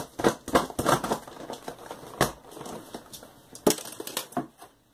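Cardboard and paper packing material being pulled and crumpled out of a tightly packed shipping box: a run of irregular crackles and sharp snaps, loudest about two seconds in and again near four seconds.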